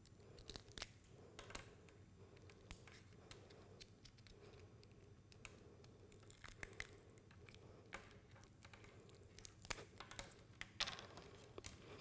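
Faint handling sounds of hands stripping polyurethane gel off a wire and a WAGO inline splicing connector: scattered small clicks, scrapes and rubbing, with a few sharper clicks near the end as the pieces are set down on the table.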